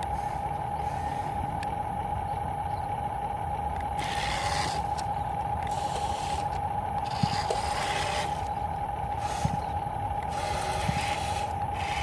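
Radio-controlled construction model running, with a steady high motor whine over a low rumble. Three spells of scraping hiss and a few light knocks come from the model working the dirt.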